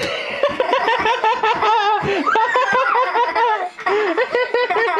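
High-pitched laughing and giggling: a string of quick rising-and-falling laugh notes, with a short break a little before the fourth second.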